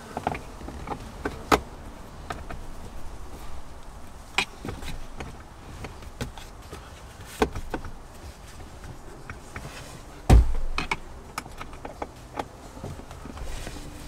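Scattered clicks and light knocks of plastic interior trim and screws being refitted by hand, with one heavier thump about ten seconds in.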